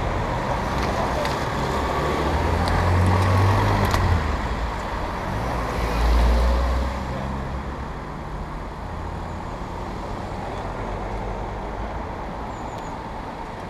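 Cars driving past close by, their engines and tyres loudest about three seconds in and again around six seconds, then a steadier, quieter traffic hum.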